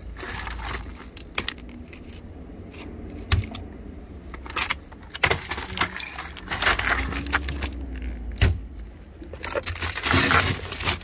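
Plastic cups of ice being rummaged and lifted out of a chest freezer: irregular plastic clacks, knocks and rustling, busiest in the middle and near the end, over a low steady hum.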